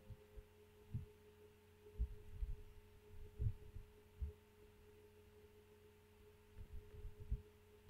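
Faint steady electrical hum with a thin steady tone, broken by a few soft, dull low thumps scattered through.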